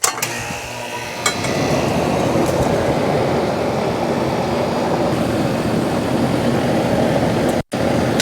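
Central air conditioner's outdoor condensing unit switching on with a click, its compressor and condenser fan coming up and getting louder about a second in, then running with a steady hum and rush of fan air, now starting on a newly fitted 40/7.5 dual run capacitor. The sound drops out for an instant near the end.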